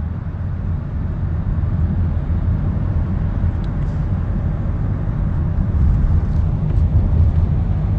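Car cabin noise: a steady low rumble of engine and road heard from inside the car.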